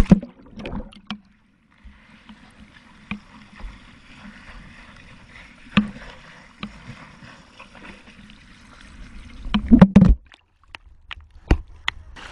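A GoPro in a waterproof housing hits the sea with a splash and floats, its microphone hearing the water as muffled sloshing with scattered knocks against the case. A burst of close, loud splashing comes about ten seconds in.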